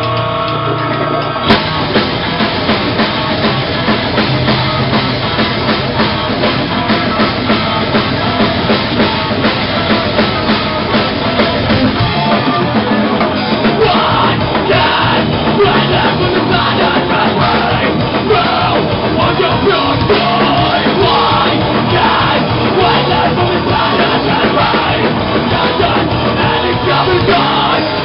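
A heavy rock band playing live and loud, with drum kit, bass and distorted electric guitar, and a vocalist shouting. The full band crashes in about a second and a half in.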